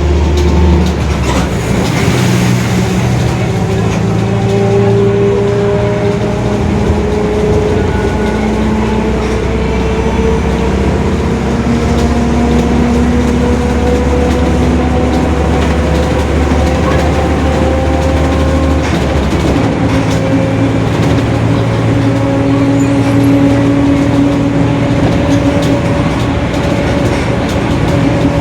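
Mercedes-Benz OF-1721 bus's rear differential howling very loudly while the bus is moving: a steady whine that climbs slowly in pitch as the bus gathers speed, over the low drone of the engine.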